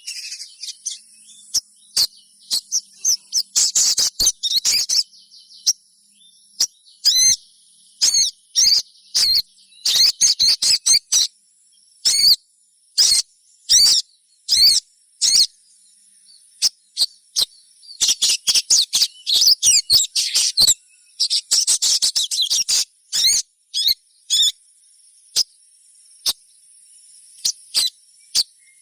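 Sogon bird calling: clusters of sharp, high chirps and fast twittering, starting and stopping irregularly with short pauses between bursts.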